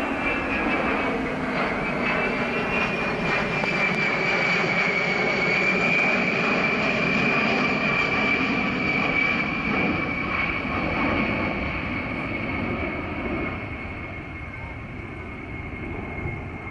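B-52H Stratofortress's eight turbofan engines on a low pass overhead: a loud jet rumble with a high whine that slowly falls in pitch. It fades over the last few seconds as the bomber draws away.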